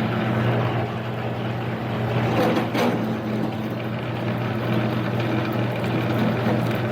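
A mini lathe's 1 hp AC motor and belt-and-pulley drive running with a steady hum. The spindle has stalled under a heavy cut, and the belt from the countershaft pulley to the spindle appears to be slipping.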